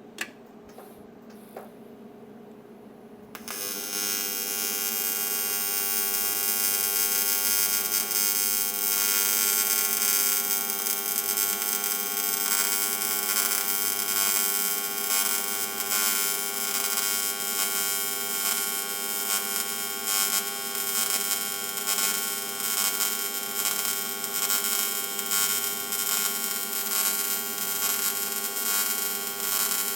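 TIG welding arc striking about three and a half seconds in, then running steadily with a buzzing hiss as the flange joint is welded on a rotating tube.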